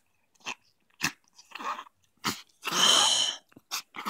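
A dog sneezing again and again in short bursts, the longest and loudest about three seconds in. She is still trying to clear her nose or throat after a large piece of grass has come out.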